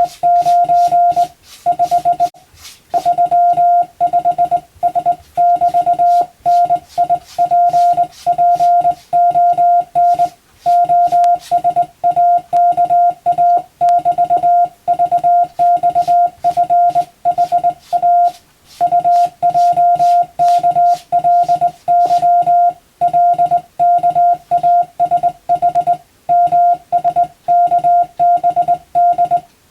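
Hand-sent Morse code (CW): a single steady tone keyed on and off in dots and dashes at an even pace, with short pauses between groups. Each element comes with a light click.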